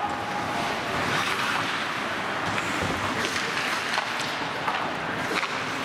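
Ice hockey play in a rink: a steady scraping hiss of skates on the ice, a few sharp clicks of sticks and puck in the second half, and faint shouts from players.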